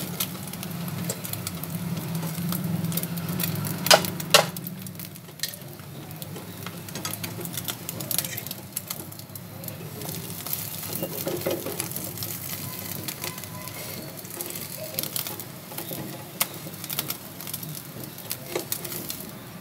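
Egg-coated bread sizzling in oil in a nonstick frying pan, with a fork scraping and clicking against the pan as it is turned. Two sharp knocks of metal on the pan about four seconds in.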